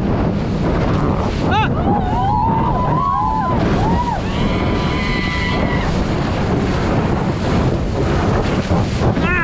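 Wind blasting the microphone and sea water rushing and splashing under an inflatable ride boat at speed, with people shouting and shrieking over it, about two seconds in and again near the end.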